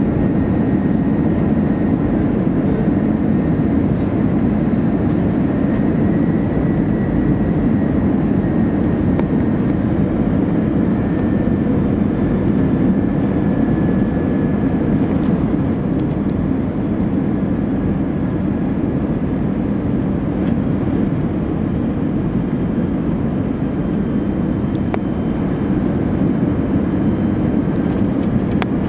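Steady cabin noise inside an Airbus A321 airliner descending to land: an even rush of engine and airflow noise with a faint high whine held throughout.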